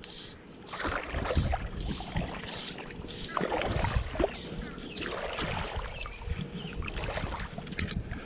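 Legs wading through a river's shallow water: irregular sloshing and splashing strokes, one or two a second.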